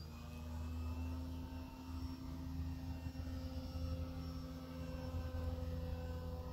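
Radio-controlled Taylorcraft model airplane's motor and propeller droning steadily in flight, the pitch drifting slightly as it passes, over a steady low rumble.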